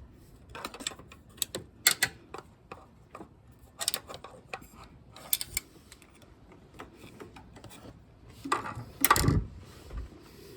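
Scattered small clicks, taps and knocks of hand work on an ATV's fuel line and pump fittings, with a louder clatter about nine seconds in.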